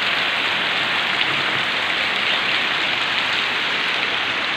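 Heavy rain falling steadily with no wind: a dense, even hiss of the downpour on the ground and surfaces.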